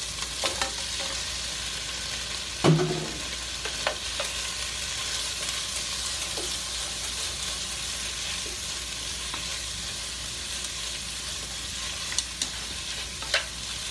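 Onion wedges and chopped green pepper sizzling as they fry in oil in a pot, with a steady hiss. A spoon stirring them clicks against the pot a few times, three of those clicks near the end.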